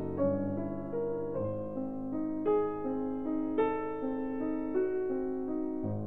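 Slow solo classical piano music as a background track, with notes and chords struck one after another, about one or two a second.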